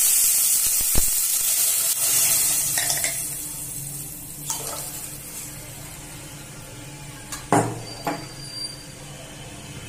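Hot oil tempering (tadka) sizzling loudly in a pan as buttermilk goes in, then dying down over about three seconds. A few knocks of a spoon against the pan follow, the loudest about seven and a half seconds in.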